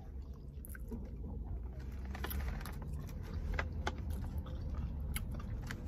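Small irregular clicks and ticks of someone eating in a car, chewing and handling the food, over a low steady rumble.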